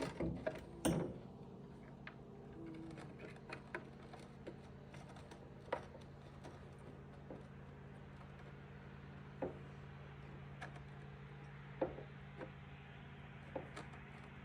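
Scattered clicks and light knocks of hand work on parts, with several louder ones in the first second, over a steady low hum.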